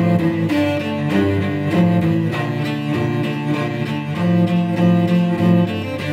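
Solo cello played with the bow: a continuous line of sustained notes in the low register, the pitch changing every half second or so.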